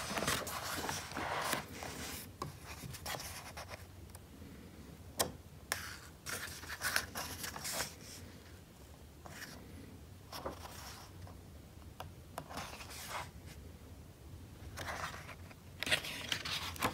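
Paper pages of a thick hardbound photo diary being turned and smoothed flat by hand: soft rustles and brushes of paper, with a few sharper page flicks.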